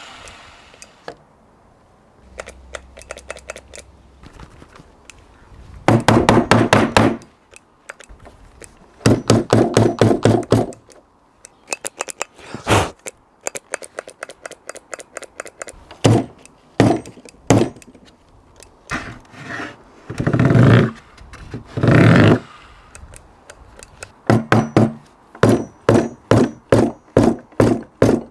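Wood being struck over and over in quick runs of knocks about a second long, then a steady series of single knocks near the end, as pallet-wood slats are fitted to the bench.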